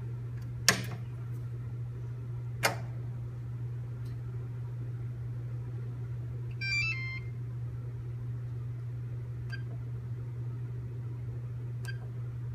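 Kakuhunter planetary mixer's control panel powering up: two sharp clicks early, then a short electronic jingle of stepped beeps about halfway through as the display lights up, and two brief key-press beeps near the end as the arrow keys are pressed. A steady low hum runs underneath.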